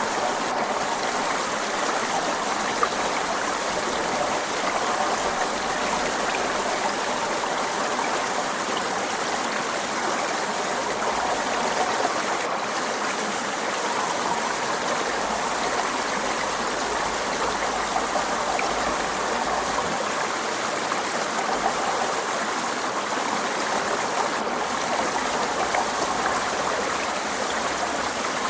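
Forest stream flowing over rocks: a steady, even rush and babble of water.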